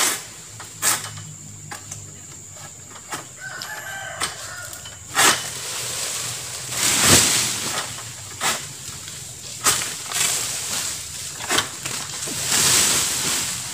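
Pole-mounted harvesting sickle cutting into an oil palm's fronds: a series of sharp cracks spaced a second or two apart, with a loud rustling swish about seven seconds in and again near the end. A rooster crows briefly about three to four seconds in.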